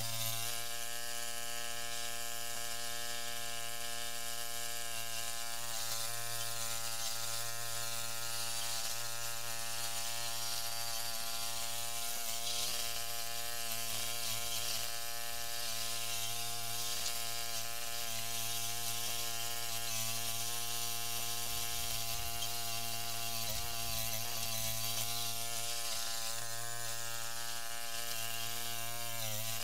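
Gilson garden tractor's 16 hp Briggs & Stratton engine running steadily under governor while the tractor pushes hard-packed dirt with its front blade, an even mechanical drone that barely changes pitch.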